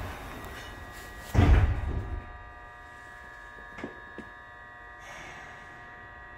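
Inside a subway car standing with its doors shut: a steady electrical hum made of several fixed tones from the train's equipment. A single heavy thunk about a second and a half in, then two faint clicks.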